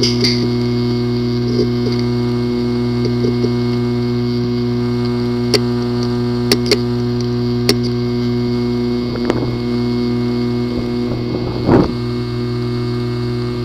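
Failing hard disk drive running with a steady hum, with a few sharp clicks around the middle and two short rising-and-falling whirs near the end, the second the loudest. The clicking is the symptom of a physically damaged disk assembly, with the drive not accessible.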